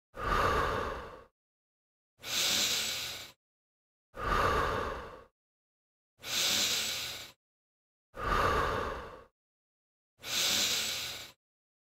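A person breathing hard with the effort of push-ups: six forceful breaths, each about a second long and evenly spaced about two seconds apart, alternating between a fuller, lower breath and a brighter, hissier one.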